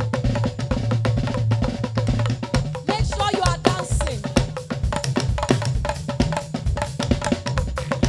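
Live praise music with a busy drum kit beat, bass drum and snare, over a steady bass line; melodic lines, singing or keyboard, come in about three seconds in.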